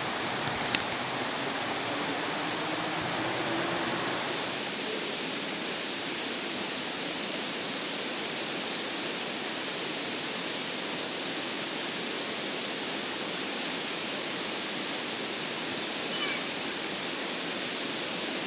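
Steady rushing of flowing stream water, an even unbroken hiss, with one sharp click about a second in.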